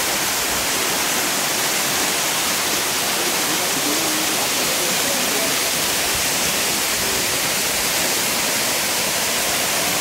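Small waterfall pouring over rock ledges into a shallow pool: a steady, even rush of falling and splashing water heard close to the falling sheet.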